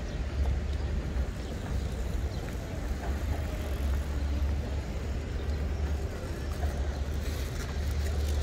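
Open-air city ambience: a steady low rumble with an even wash of distant noise over it and no single clear event.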